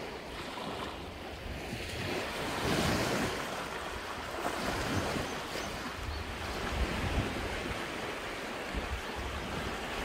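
Small sea waves washing onto a pebble shore and flat rock ledges, swelling and ebbing every couple of seconds, with a low rumble of wind on the microphone.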